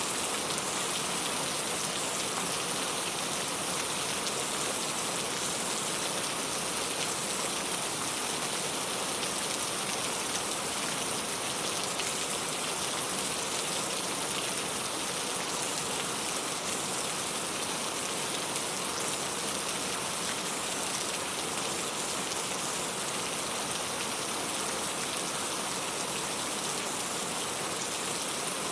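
Steady rain falling, an even hiss of drops on surfaces that does not let up.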